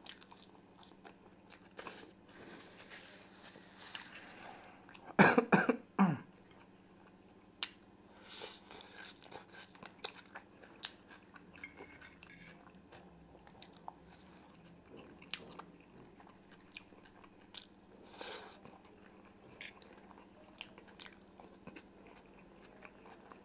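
Close-miked chewing and biting of fried potatoes and pork ribs, with small clicks of a fork against the pan. A much louder burst comes about five seconds in.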